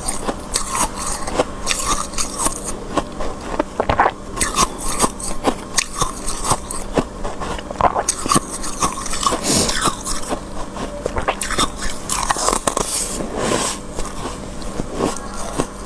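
Close-up crunching and scraping of thick freezer frost as a spoon digs into it: a dense, uneven run of small crisp crackles.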